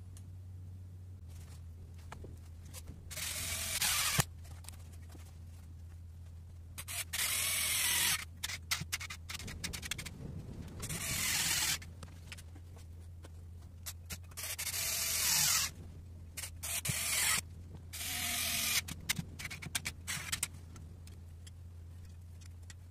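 Cordless screwdriver running in five short spurts of about a second each, driving in the screws of a carburettor top cover. Light clicks and rattles of the parts fall between the spurts.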